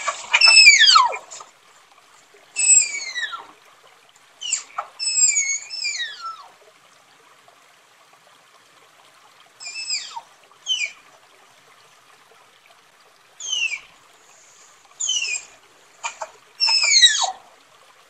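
Tapir whistling calls: shrill squeals that each slide steeply down in pitch, coming singly or in quick pairs and threes with quiet pauses of a few seconds between.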